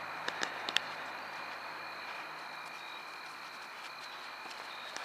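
Night insects trilling steadily at two high pitches over a faint low hum that fades out about two seconds in, with a few light clicks in the first second.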